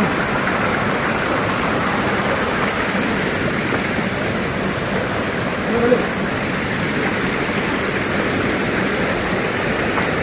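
Steady rushing of a waterfall and its river. About six seconds in, a brief voice-like sound is heard over it.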